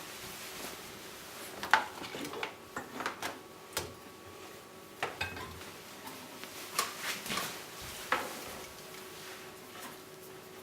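Light metallic clinks and knocks, a dozen or so scattered irregularly, from handling the fittings of a copper still while its condenser's cooling water is set up, over a faint steady hum.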